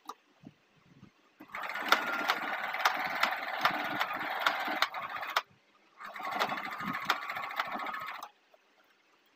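Singer 2263 electric sewing machine stitching in two runs, about four seconds and then about two seconds with a short pause between, its needle mechanism clicking steadily as it goes.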